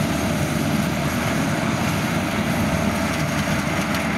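Kubota DC70 rice combine harvester running steadily while it cuts and threshes, its engine and threshing machinery making a loud, even mechanical din. This DC70 has been fitted with a larger engine from Kubota's 100-series combines, which gives it surplus power.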